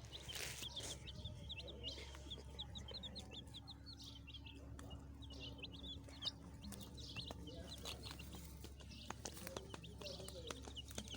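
Baby chicks peeping: many short, high chirps in quick succession, over a steady low hum.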